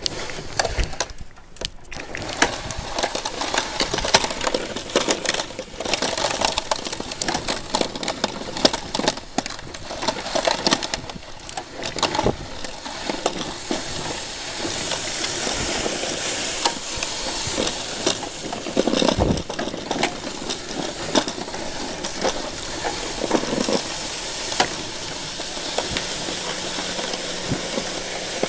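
Homemade pedal-powered trike snow plow with a 4-inch ABS pipe blade pushing snow: a continuous crunching and scraping of snow against the blade as it rolls along, with scattered clicks and knocks.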